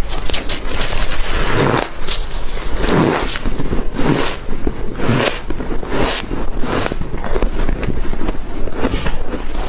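Close-miked biting and chewing of squeaky, crunchy freezer frost: a steady run of crunches, about one a second, each with a dense crackle.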